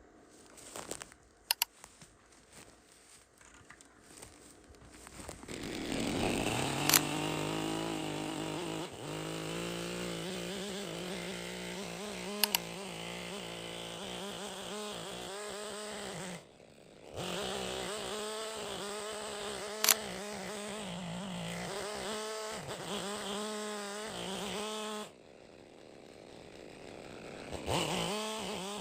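Chainsaw revving up about five seconds in and running at high speed with its pitch wavering under cutting load, as in a lengthwise cut along a log. The engine noise drops away suddenly twice, around the middle and near the end, and picks up again each time, with a few sharp clicks over it.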